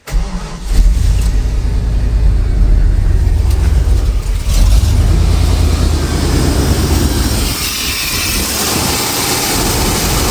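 Chevrolet throttle-body-injected small-block V8 idling roughly under the open hood, the rough idle of a suspected intake-gasket vacuum leak. A steady hiss rises alongside it in the second half.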